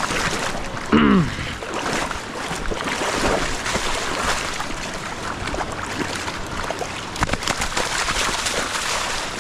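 Rushing river water with scattered splashes. There is a brief voice-like falling cry about a second in.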